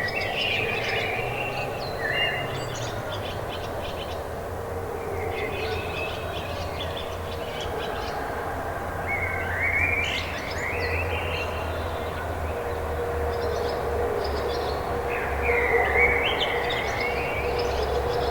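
Songbirds singing in short repeated phrases every few seconds over a steady low rumble with a faint droning hum, like distant traffic or a train; the rumble grows a little stronger in the second half.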